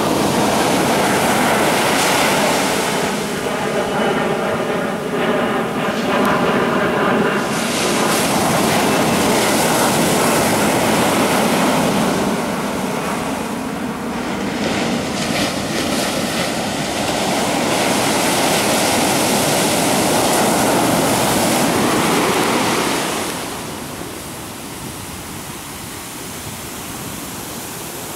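Ocean surf washing in: a continuous loud rush of breaking waves and water sweeping inland, which drops off sharply near the end. A few seconds in, a steady engine drone sounds over the surf for several seconds.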